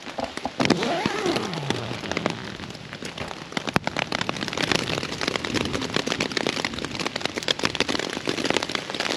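Rain falling steadily, a dense patter of close drops.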